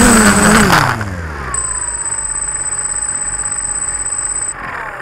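FPV quadcopter's motors and propellers buzzing, then winding down in pitch and dying away about a second in as the quad comes to rest on the ground. A thin, high, steady whine follows and stops near the end.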